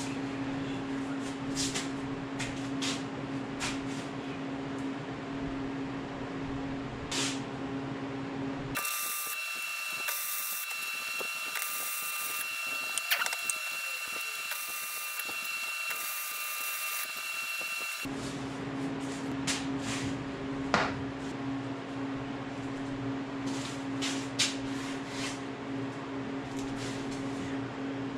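Electric arc welding on the steel trolley for about nine seconds in the middle: a crackling hiss with a steady high whine. Before and after it there is a steady low hum, with light clicks and taps of the parts being handled.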